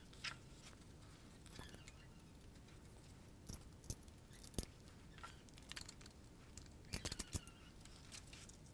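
Faint scattered clicks and light taps of 3D-printed plastic actuator parts being handled and fitted together by hand, with a quick cluster of clicks about seven seconds in.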